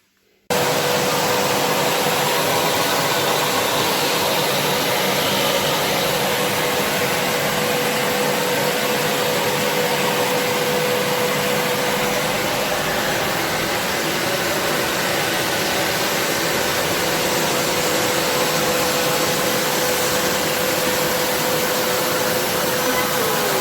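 Kärcher 5.100 washing vacuum cleaner running steadily: a loud, even rush of suction with one steady whine, coming on abruptly about half a second in.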